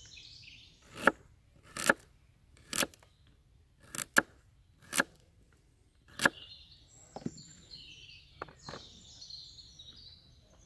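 A knife chopping a parsnip, one sharp chop roughly every second, done one-handed. Small birds sing in the background, mostly in the second half.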